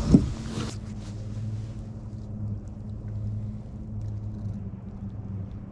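Steady low hum of a small electric motor aboard a fishing boat, opening with a single sharp knock.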